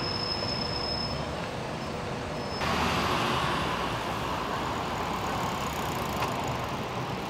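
Street traffic noise from passing cars, a steady rush without words. About two and a half seconds in it jumps abruptly to a louder stretch of traffic.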